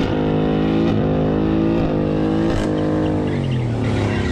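Pickup truck engine held at high revs during a burnout, the pitch dipping briefly about once a second and dropping off near the end as the revs come down.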